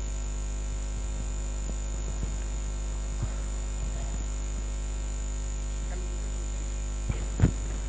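Steady electrical hum and buzz from a public-address sound system, with a thin high whine above it and a couple of short knocks near the end.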